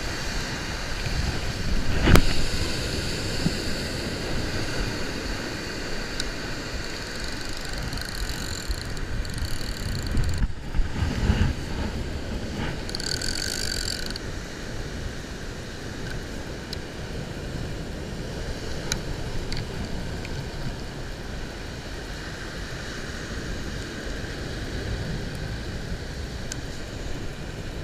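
Wind buffeting the microphone over surf washing up the beach, with a sharp knock about two seconds in.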